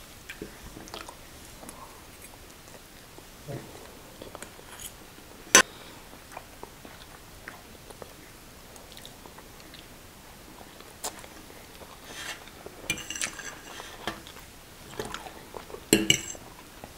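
Close-up eating sounds of two people chewing mouthfuls of instant noodles and fried chicken, with scattered clicks of forks on plates. One sharp click comes about five and a half seconds in, and the eating sounds grow busier near the end.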